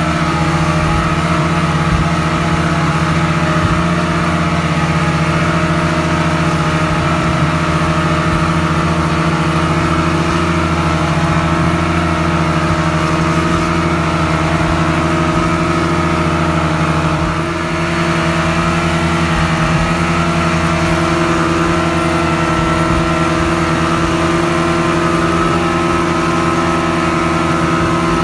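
Twin outboard motors on a speedboat running steadily at high speed, with water rushing and splashing in the wake. The engine note dips briefly and shifts slightly about seventeen seconds in, then runs on steadily.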